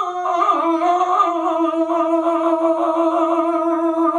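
A man's voice singing a Telugu padyam (metrical verse) unaccompanied. The pitch is ornamented with quick turns at first, then settles about a second in into one long held note with a slight waver.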